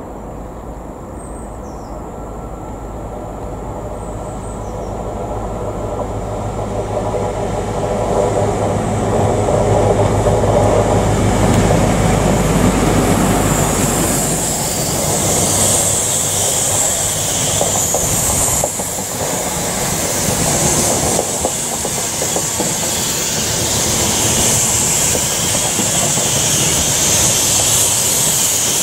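High Speed Train led by Class 43 power car 43321, its MTU V16 diesel droning louder as it approaches and passes. About halfway through the engine note gives way to the rush of the Mark 3 coaches' wheels on the rails, a high hiss with a rhythmic clickety-clack.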